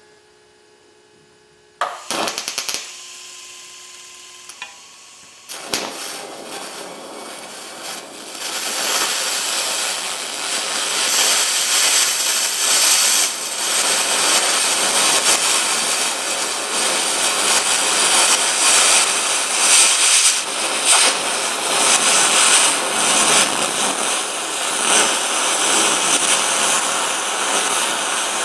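TIG welding arc on aluminum run on DC electrode positive with high-frequency start, a steady crackling hiss. A few sharp clicks come about two seconds in. The arc then grows louder over several seconds and holds steady. On DCEP the arc runs very hot and the tungsten is balled.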